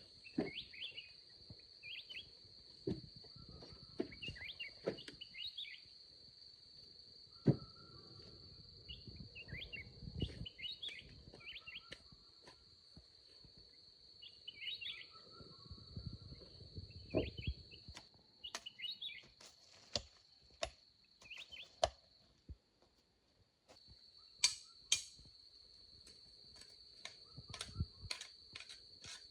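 Forest ambience: a steady high-pitched insect drone, with birds chirping in short bursts throughout. Scattered sharp knocks and clicks and a few dull thuds sound over it.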